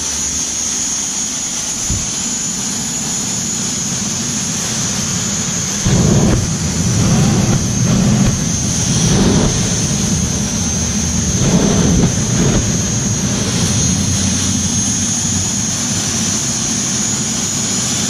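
Jet engine running on a test stand with a steady high turbine whine over its exhaust noise. From about six seconds in, louder low surges come and go several times.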